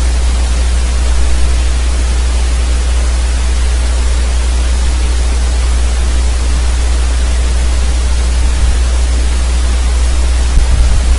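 Steady hiss with a strong, constant low hum beneath it: the background noise of the narrator's microphone channel while nothing else is heard.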